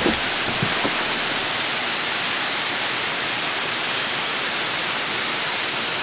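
Waterfall spilling down a rock face, a steady, even rush of falling water.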